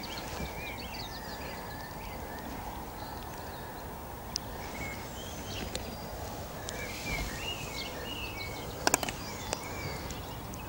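Small birds chirping and calling over steady low background noise, with a few sharp clicks, the loudest a quick cluster about nine seconds in.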